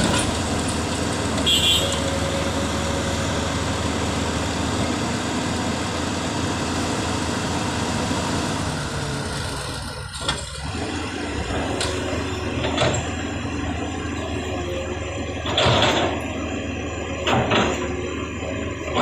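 Heavy road-work machinery engine running steadily. Several short knocks and scrapes come in the second half.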